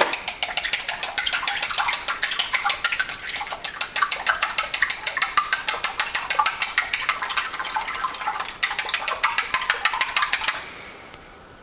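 Chopsticks beating eggs in a ceramic bowl: a rapid, steady clicking of the sticks against the bowl, about six strokes a second, which stops about a second before the end.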